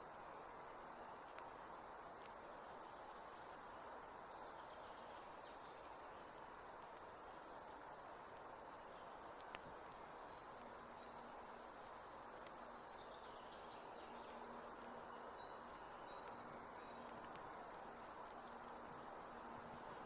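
Faint outdoor ambience: a steady low hiss with scattered faint high chirps, a single sharp click about halfway through, and a faint steady hum joining in the second half.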